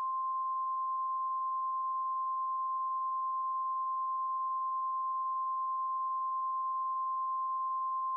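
NOAA Weather Radio 1050 Hz warning alarm tone: a single steady pure tone held unbroken, the alert signal that announces a new warning, here a tornado warning.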